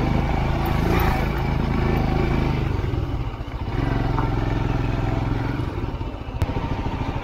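Motorcycle engine running under load, climbing a very steep hill road. Its note dips briefly about three and a half seconds in, then steadies again.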